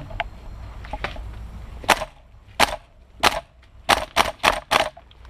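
Airsoft rifle firing about seven single shots, sharp cracks spaced roughly half a second to a second apart and coming quicker near the end.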